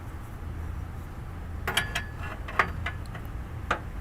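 A few separate, sharp metallic clicks and clinks of a hand tool on the fitting while a downstream oxygen sensor is being tightened, over a steady low hum.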